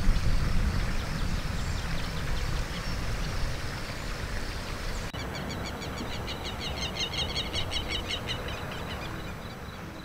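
Evening outdoor ambience: a low rumble with a haze of noise that slowly fades, then, about five seconds in, a rapid trilling call of short repeated chirps, several a second, lasting about four seconds.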